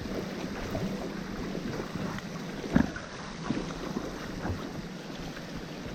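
Steady rushing of river water with wind on the microphone, and a brief knock a little before the middle.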